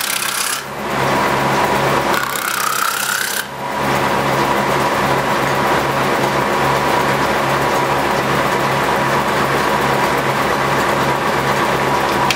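1930s Osbyverken stave side planer, its large cutter disc running at speed with a steady hum while a wooden barrel stave is fed against it by hand and planed on its side. The wood-cutting noise is loud, with brief dips as the stave is shifted, and holds steady from about three and a half seconds in.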